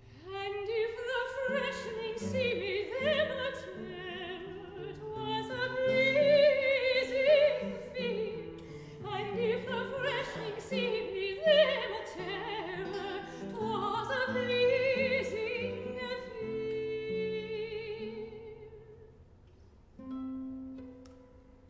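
Soprano singing a classical art song with vibrato, accompanied by plucked baroque guitar. The voice fades out near the end, leaving the guitar playing alone.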